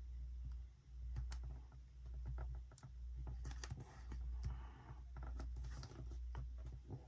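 Light taps, clicks and rustles of a paper sticker strip being handled, peeled and pressed onto a planner page, over a low steady hum.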